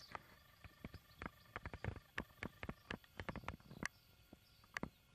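Roe deer fawn moving and nuzzling at close range: an irregular run of short clicks and soft taps.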